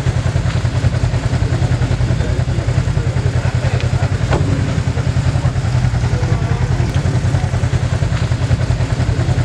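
Side-by-side UTV engine idling with a steady, rapid low pulse.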